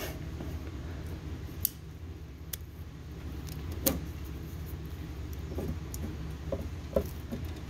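A few scattered, sharp metallic clicks and clinks of a hand tool working a T-30 Torx fastener under a van. They come irregularly, about four in all, over a steady low hum.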